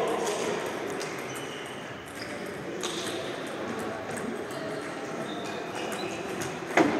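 Table tennis balls clicking on bats and tables: a few scattered clicks, then a louder sharp hit near the end, with voices murmuring in the background.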